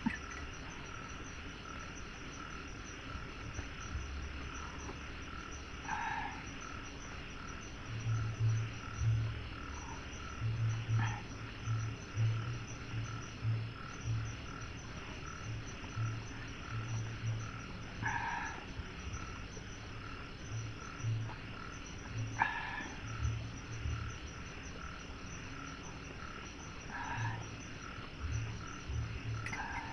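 Night forest chorus: insects trilling steadily, with runs of low, pulsed frog croaks from about a quarter of the way in and a few short higher calls now and then.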